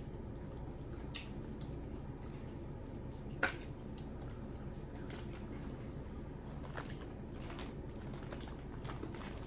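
Quiet eating sounds of a seafood boil: wet, messy handling of shell-on seafood, peeling and chewing, with faint squishes and small clicks over a steady low hum. There is one sharper click about three and a half seconds in.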